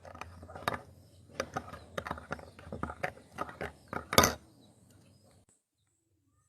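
A run of irregular short clicks and light knocks, the strongest about four seconds in, after which the sound drops to near silence.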